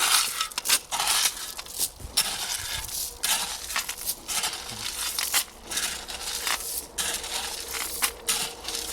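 Rigid foam insulation boards being handled and laid down, crunching and scraping in irregular bursts.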